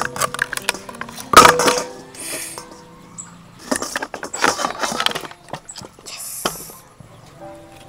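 Kitchenware clinking and knocking: a run of sharp metallic clinks and scrapes, loudest about a second and a half in, another cluster in the middle, and a single knock near the end.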